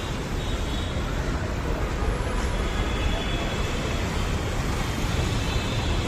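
Steady road traffic noise: a continuous low rumble of vehicle engines and tyres, with no single event standing out.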